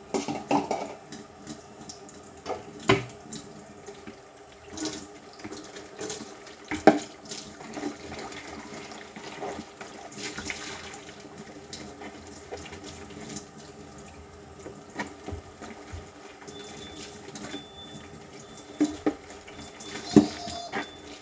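Kitchen sink tap running while dishes are washed by hand, with scattered clinks and knocks of dishes and utensils. A repeating high beep starts near the end.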